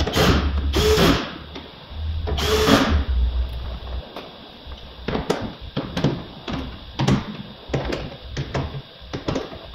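A small electric power tool runs in two short bursts of about a second each, whirring with a low hum. The rest is scattered clicks and knocks of parts being handled on the bare door panel.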